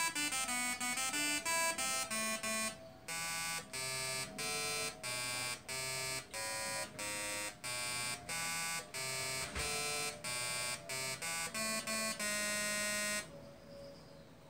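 Arduino-interrupted slayer exciter Tesla coil, its corona discharge buzzing out a tune of short separate notes at changing pitches, fast at first and then two or three a second. The notes stop about a second before the end.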